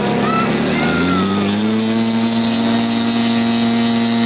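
Giant-scale RC Pitts Model 12 biplane's 150cc gasoline engine running in flight, throttling up about a second in and then holding a steady, higher pitch.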